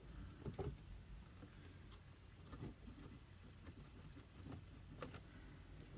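Near silence broken by a few faint, scattered light taps and clicks as the roof rack and RC body shell are handled while hole positions are marked.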